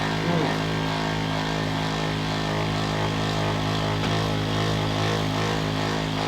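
Steady machine hum at one unchanging pitch, running without a break.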